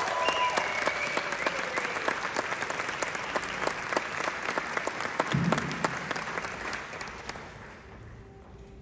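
Audience applauding, the clapping dying away about seven to eight seconds in.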